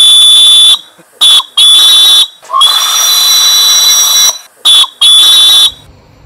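Brass steam whistle on a small coal-fired live-steam locomotive, sounded in a series of about six high-pitched blasts, some long and some short toots, each cut off sharply.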